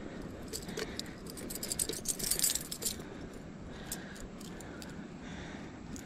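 Small metal fishing tackle jingling and clicking in a quick run of rattles, loudest about two seconds in, with a few more clicks later. This is the handling of the hook and lure while a musky is unhooked in the landing net.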